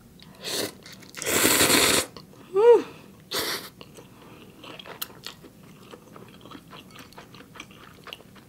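A person slurping spicy instant ramen noodles in soup, one long loud slurp and shorter ones around it, with a brief rising-and-falling hummed 'mm' between them. This gives way to soft mouth-chewing with many small wet clicks.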